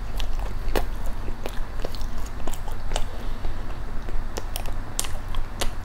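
Close-miked chewing of a bite of filled dessert, heard as many irregular sharp clicks.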